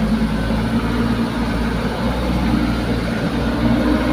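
Heavy truck engine running steadily with a low hum.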